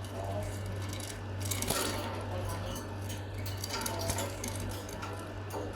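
Light, scattered clinks and rattles over a steady low hum.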